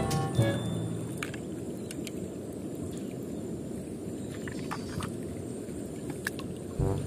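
Steady low outdoor background rumble with a few faint clicks. Music fades out at the start and comes back in near the end.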